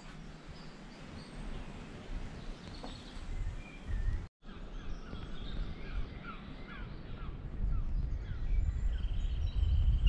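Birds calling and chirping over a low rumble that grows louder toward the end; the sound drops out for a moment a little past four seconds.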